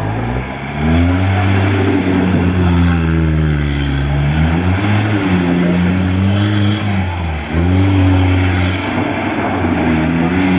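Suzuki Gypsy 4x4 engine revving hard off-road, its pitch climbing and sagging several times as the throttle is worked. There is a brief sharp drop in revs about seven seconds in before it picks up again.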